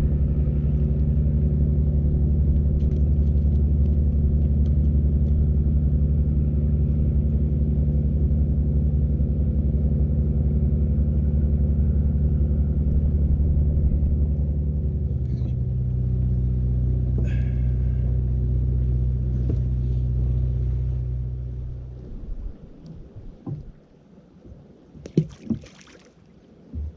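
Fishing boat's engine running steadily at speed, dropping to a lower, slower pitch about halfway through, then cutting off; a few light knocks follow.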